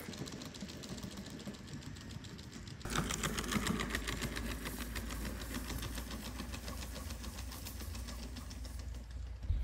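Quadruped robot dog walking: a rapid, even mechanical ticking of its leg motors and footsteps, with a low steady rumble underneath. It sets in suddenly about three seconds in, after a quieter start.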